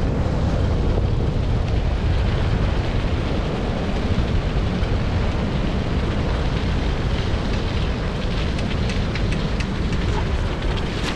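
Steady low rumbling noise of wind on the rig-mounted microphone and the rig's wheels rolling over a dirt road behind a running four-dog team. Faint light ticks show through in the second half.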